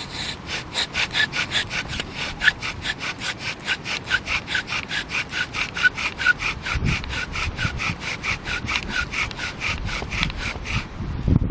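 Bow drill fire-making: the bow spins a wooden spindle back and forth in a wooden hearth board, giving a fast, even rubbing at about four strokes a second. The rubbing stops shortly before the end.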